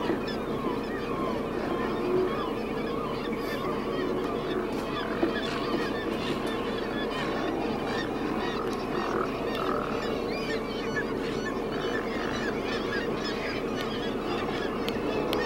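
A colony of sea lions hauled out on rock, many animals barking over one another in a continuous chorus.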